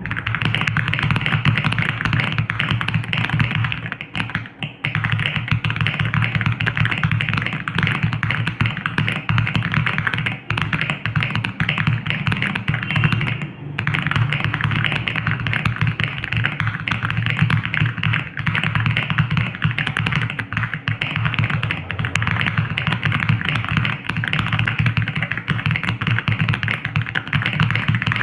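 Aula F99 mechanical keyboard with Crescent switches, typed on very fast: a dense, continuous clatter of keystrokes, broken by brief pauses about four seconds in and again about halfway.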